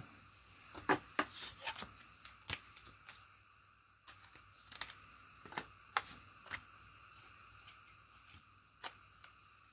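Irregular light clicks and taps, a dozen or more spread unevenly, over a faint steady hiss.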